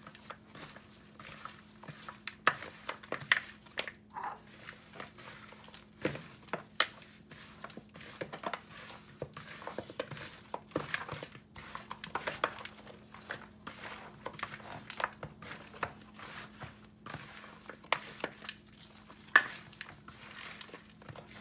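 Gloved hands rubbing dry seasoning into raw mutton chunks in a glass bowl: irregular crinkling of the plastic glove and squelching of the meat, with light knocks of meat against the glass. A faint steady hum sits underneath.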